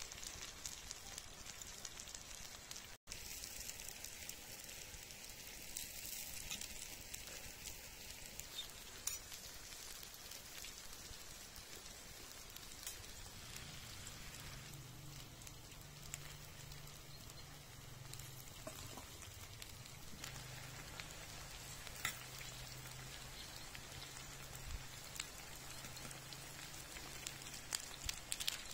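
Flour-coated chicken fillets and sliced vegetables sizzling on a flat steel griddle over a wood fire: a steady, faint hiss with scattered small pops and crackles.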